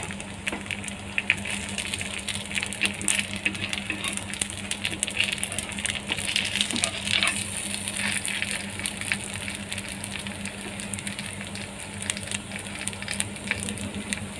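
Semolina pancake frying in oil on a nonstick pan: a steady sizzle with frequent small crackles, over a steady low hum.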